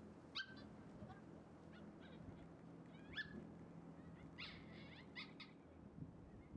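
Several short, high bird chirps scattered over faint outdoor quiet with a low steady hum.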